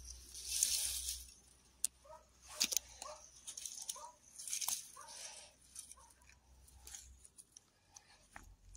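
Hands brushing aside dry pine needles and forest litter, with rustling and a few sharp snaps and crackles of twigs and needles.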